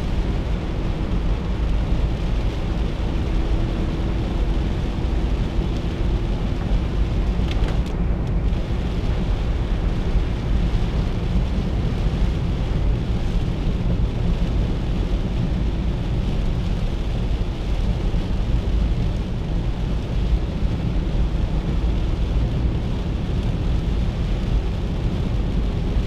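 Inside the cabin of a 1997 Chevrolet Corsa Wind with its 1.0 MPFI four-cylinder, cruising on a highway in heavy rain. The noise is a steady low rumble of engine and tyres on the wet road, with the hiss of rain on the car.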